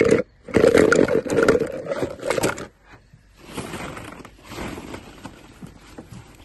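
A loud, rough rush of sound for the first two and a half seconds, then hollow plastic ball-pit balls clattering and rustling quietly as a hand digs through them.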